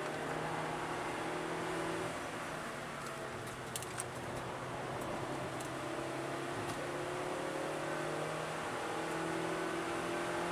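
Suzuki Swift Sport's four-cylinder engine heard from inside the cabin under acceleration, over wind and road noise. Its pitch falls about two seconds in, then climbs steadily.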